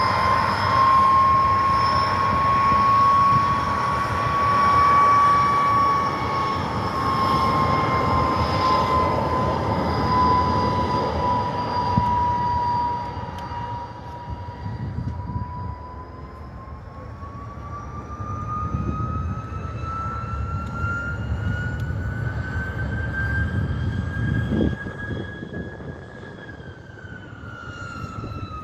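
WWII fighters' piston aero engines, a Spitfire and a Hurricane, running at power for take-off: a steady high whine over a deep rumble. Loud for roughly the first half, then quieter, with the whine rising in pitch in the second half and dropping again near the end.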